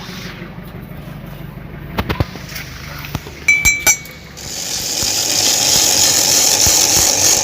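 Knocks and ringing metallic clinks of tools being handled, over a low steady hum, then a hissing noise that builds from about four and a half seconds in and holds steady.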